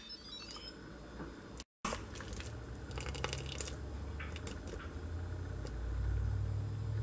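Metal spoon clicking and scraping against a stainless steel inner pot while scooping cooked pinto beans, over a low rumble of handling noise that grows louder near the end. The sound cuts out briefly about two seconds in.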